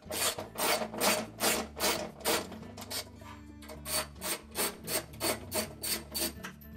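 Ratchet wrench with a 3/8-inch socket on a short extension being worked back and forth on a washer's tub-mounting bolts, each return stroke a short ratcheting rasp, about two or three a second. The strokes are louder at first and weaker in the second half.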